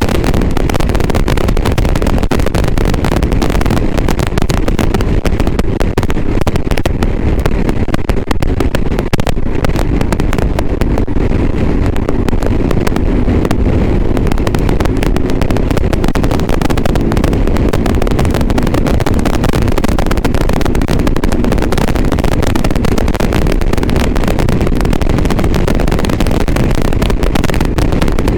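Motorcycle engine and wind noise on the move, recorded by a GoPro Hero 7 Black through an external microphone, distorted and overlaid with constant crackling and popping. The crackle is the recording fault, the bad sound of the camera's external-mic setup.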